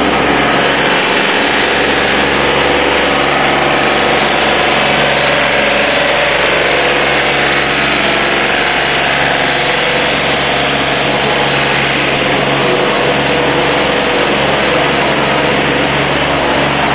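An engine runs steadily at an unchanging pitch and level, as a low hum under a wash of noise.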